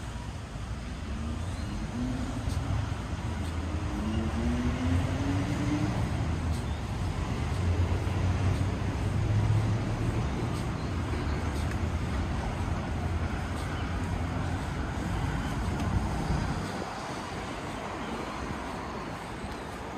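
Road traffic: a motor vehicle's engine close by, a low rumble whose note rises in pitch twice in the first few seconds as it accelerates. The rumble drops away suddenly about sixteen seconds in, leaving quieter traffic noise.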